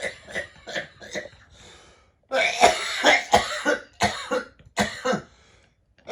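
A man coughing in repeated fits: a few short coughs, then after a brief pause a harder, louder string of coughs about two seconds in, and a few more coughs later on.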